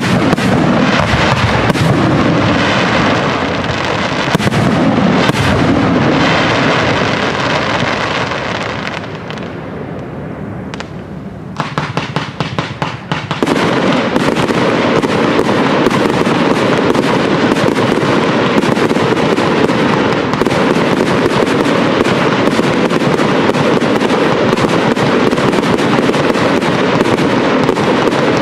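Fireworks display going off: dense bangs and crackles of bursting shells, easing for a moment about nine seconds in. About twelve seconds in there is a quick string of sharp cracks, after which the firing runs on without a break.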